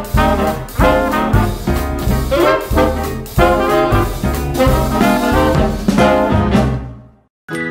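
Upbeat swing-style background music with brass and a steady beat, fading out about seven seconds in; a different, quieter tune starts right at the end.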